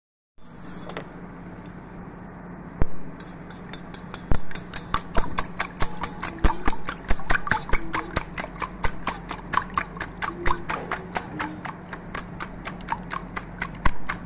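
Wire whisk beating raw eggs in a metal bowl: the wires click against the side of the bowl, a few scattered strikes at first, then quick, even clicking at about five strikes a second from about three seconds in.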